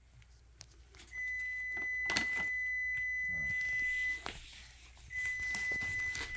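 A steady, high electronic beep tone held for about three seconds, which stops and then starts again about a second later. A few light clicks or rustles sound over it, the clearest about two seconds in.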